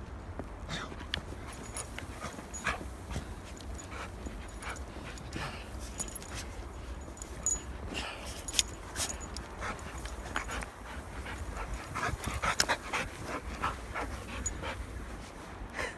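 Dogs panting, with many short clicks and ticks scattered throughout over a steady low rumble.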